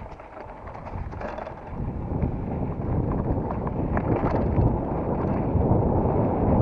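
Wind rushing over the microphone while a mountain bike is ridden along a dirt trail, with small clicks and rattles early on; the rushing grows louder from about two seconds in as speed picks up.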